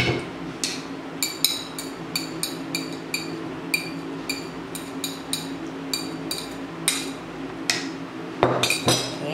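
Metal spoon tapping and scraping against a plate, knocking steamed pumpkin pieces off it into a chopper bowl: a run of sharp clinks, about three a second. A louder clatter comes near the end as the plate is moved.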